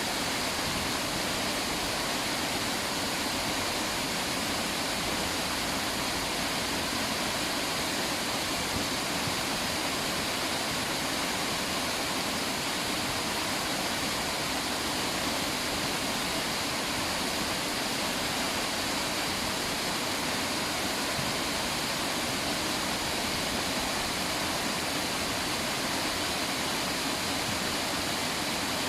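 River water rushing and splashing in a steady, unbroken wash.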